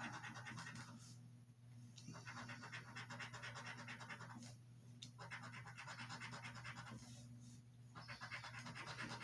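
A coin scratching the coating off a scratch-off lottery ticket in quick, rapid strokes, in four short bouts with brief pauses between them.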